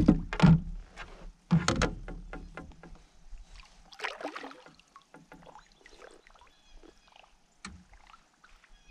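Northern pike thrashing and splashing at the surface beside a canoe as it is landed by hand. The loudest splashes come in the first two seconds, with another burst of water about four seconds in, then quieter sloshing and handling with a sharp knock near the end.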